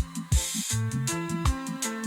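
Background music with a steady drum beat and bass line, and a brief cymbal-like hiss about a third of a second in.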